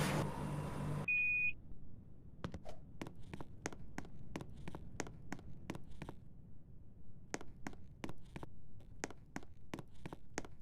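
An air conditioner's loud running noise, with a low hum, cuts off abruptly about a second in, followed by a single short high beep. Then a series of sharp clicks or taps comes at about three a second, with a brief pause near the middle.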